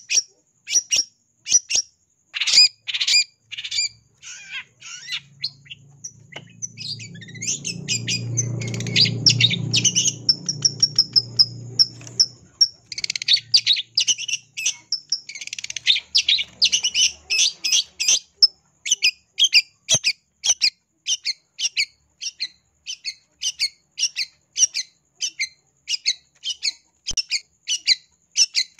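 Long-tailed shrike giving short, harsh, high calls about two a second, breaking into a faster, denser run of notes in the middle. A low rumble runs underneath for several seconds in the middle.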